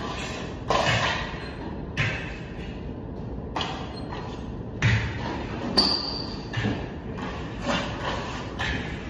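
Hand plastering work on a ceiling: a run of short scrapes and knocks from the trowel and tools, about one a second, with one brief metallic ping a little past the middle.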